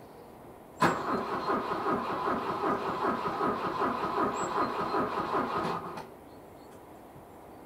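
Starter motor cranking the 1986 Volvo 245's carbureted B23A four-cylinder in −14 °C cold, with a slow, even beat of compression strokes. The engine does not catch, and the cranking stops abruptly after about five seconds.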